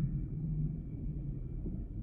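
Low underwater background rumble in a pause between humpback whale song calls.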